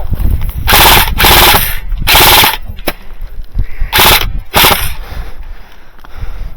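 Golden Eagle MCR airsoft light machine gun firing five short full-auto bursts close to the microphone: three in quick succession, then two more about four seconds in.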